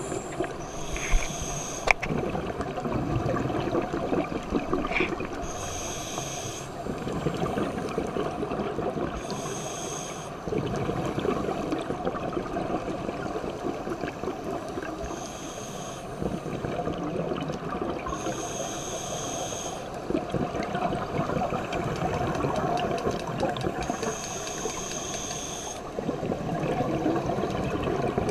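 Scuba regulator breathing, picked up underwater through a GoPro housing: about six hissing inhales, each with a high whistle and coming every four to five seconds, between spells of rumbling, bubbling exhalation.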